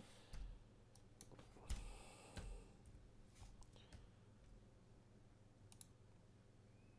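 Faint, scattered clicks of a computer mouse and keyboard over near silence, a handful in all, the loudest group about two seconds in.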